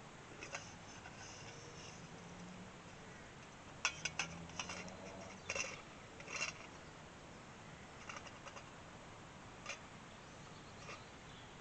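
A metal kettle and a wooden pot-hanger pole being handled over a campfire, giving a few light clicks and knocks: a quick cluster about four seconds in, more around five and a half and six and a half seconds, then a few fainter ticks.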